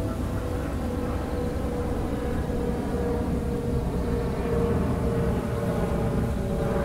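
Jet engine noise from a Boeing 777-300ER's GE90 engines at approach power on final approach: a steady rumble with a couple of steady whining tones, slowly getting louder.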